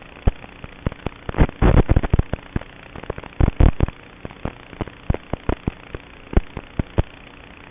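A run of irregular sharp clicks and pops, some in quick clusters around the middle, over a steady faint hiss and hum.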